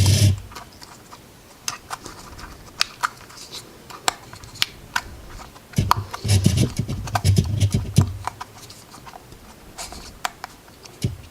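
Hands fitting a soft rubber tyre and plastic wheel onto an RC car: scattered small clicks and scratches, with heavier rubbing and handling sounds near the start and again from about six to eight seconds in.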